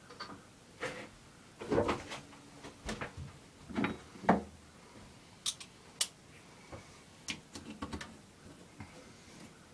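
Irregular knocks and clinks of a socket wrench and metal carburetor parts being handled while bolting the carburetor onto a 5 hp Briggs & Stratton engine, duller knocks first, then sharper, lighter clicks.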